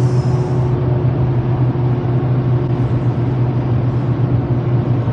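Car driving at speed, heard from inside the cabin: a steady drone of engine and tyre noise with a constant low hum.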